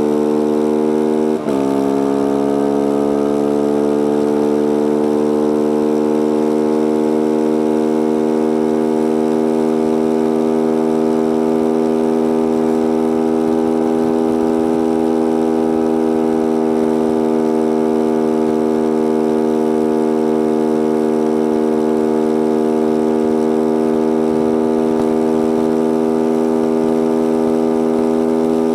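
Single-cylinder engine of a Beta RR 125 supermoto at high revs under full throttle. About a second and a half in, a quick gear change briefly drops the level and pitch; then the revs climb slowly and level off near the bike's top speed. A steady rush of wind noise runs alongside.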